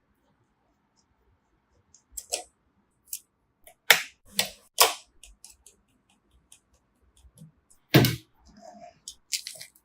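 Irregular sharp clicks and knocks of computer parts being handled and snapped into place, with short silent gaps between; the loudest knock comes about eight seconds in.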